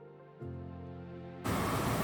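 Soft background music with long held chords, a new chord entering early. About one and a half seconds in, it cuts off abruptly to a louder steady rushing noise.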